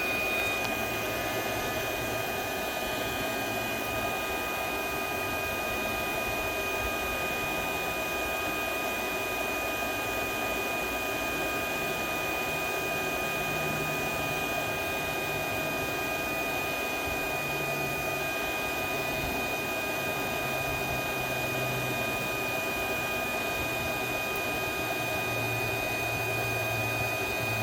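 Hot Rod handheld induction heater running steadily, a fan-like noise with a thin, steady high whine, as it heats a seized oxygen-sensor nut.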